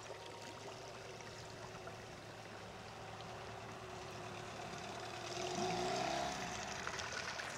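Small boat's outboard motor running over a steady wash of water; a little over five seconds in its pitch rises and it grows louder, then eases off near the end.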